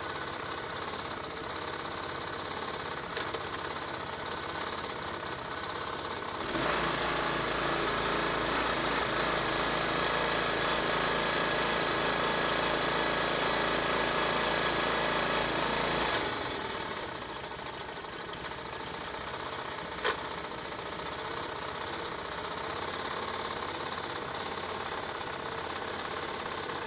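Briggs & Stratton Quantum 6 hp single-cylinder four-stroke engine, converted to drive a Chrysler outboard's lower unit, running steadily at idle. About six seconds in it runs louder for about ten seconds, then settles back to idle. There is one sharp click about two-thirds of the way through.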